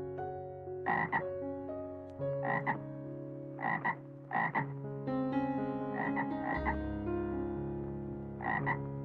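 Frog croaking: short croaks repeated about six times, several in quick pairs, over a soft background tune.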